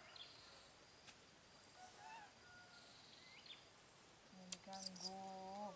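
Mostly quiet with a few faint high squeaks, then near the end a woman's voice hums a low, steady note for over a second, with several sharp clicks as it starts.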